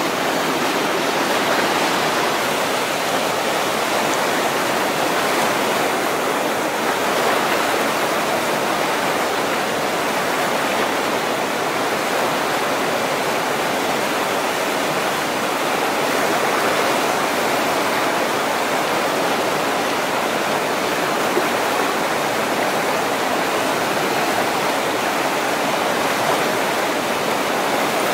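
Whitewater rapids rushing: a steady, unbroken sound of churning river water.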